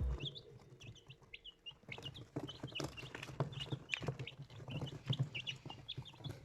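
Young chicks peeping: many short, high chirps overlapping, from several birds at once.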